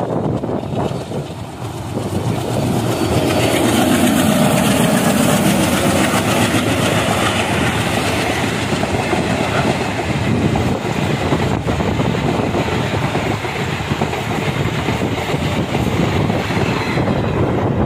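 ALCO WDG3A diesel locomotive passing at speed, its engine note falling in pitch as it goes by. Its train of passenger coaches then runs past with a steady rush of wheels on the rails.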